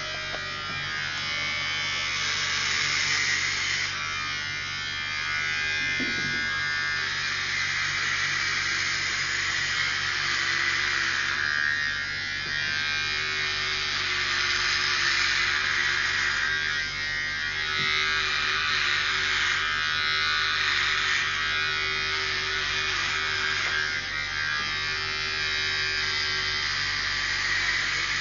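Electric hair clippers buzzing steadily during a haircut, the buzz thickening and thinning every few seconds.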